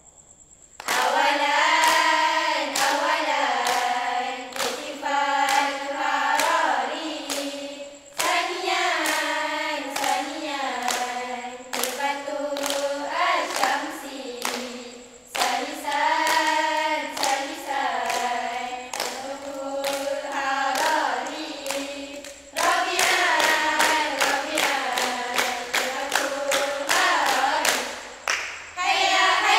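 Girls' choir singing together in phrases, with sharp rhythmic hand claps over the singing that come thickest in the last several seconds.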